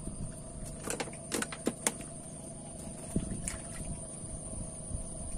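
Several sharp clicks and taps, most of them between one and two seconds in, over a steady low hum.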